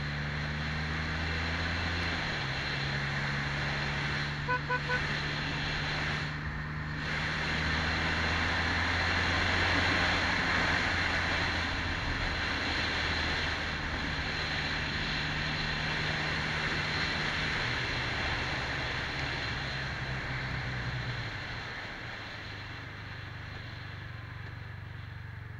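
2018 Can-Am Spyder F3S's Rotax 1330 three-cylinder engine running at cruising speed, heard from the rider's seat under wind and road rush on the microphone. The engine note steps down about two seconds in and fades near the end as the trike slows. Three short beeps sound about five seconds in.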